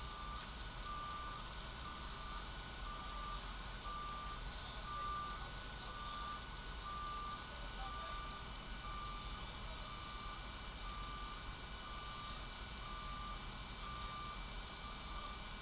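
Fire truck's reversing alarm beeping steadily, about once a second, as the truck backs up, over a low engine rumble.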